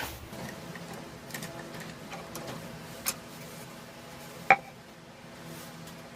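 A few light clicks and taps of workshop handling, with a louder click about three seconds in and one sharp knock about four and a half seconds in that rings briefly.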